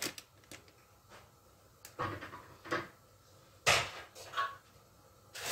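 Four short knocks and clatters of kitchen dishes and utensils being handled, the loudest a little past the middle, with quiet room tone between them.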